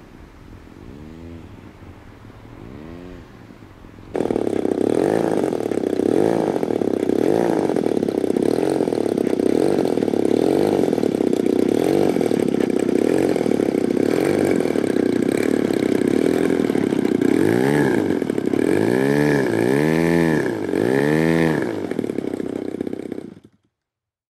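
Engine of a 1:5-scale Stearman PT-17 radio-controlled model biplane running, quieter at first and much louder from about four seconds in, its tone sweeping up and down again and again. It cuts off just before the end.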